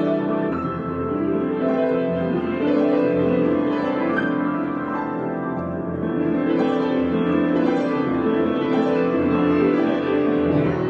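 Piano being played in a slow, free improvisation, with many notes and chords held and overlapping at an even loudness.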